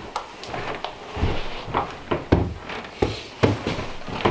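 Wooden cabin door being opened and a person in boots stepping in: a string of irregular knocks and dull thumps.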